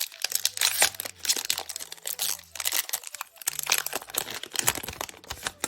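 Foil Pokémon booster pack wrapper being torn open and crinkled: a dense run of crackling and tearing.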